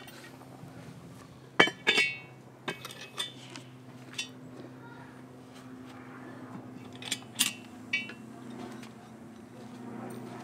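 Clinks and knocks of a cast-iron Dutch oven: the heavy lid going on and the wire bail handle rattling as the pot is lifted off the coals and set down. There are about eight sharp metallic strikes, bunched at two points, and one about two seconds in rings on briefly.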